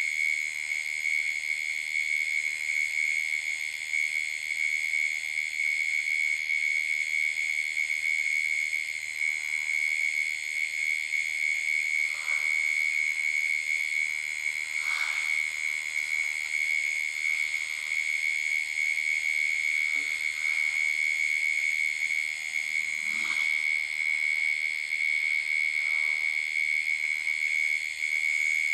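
Night-time chorus of calling insects: one steady high-pitched trill with fainter, finely pulsing chirring above it. A few brief calls stand out about 12, 15, 20, 23 and 26 seconds in.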